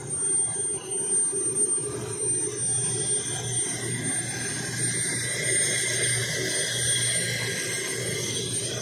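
Large engine lathe turning a big steel cylinder: a steady low machine hum with high-pitched whining tones above it as the tool cuts the metal.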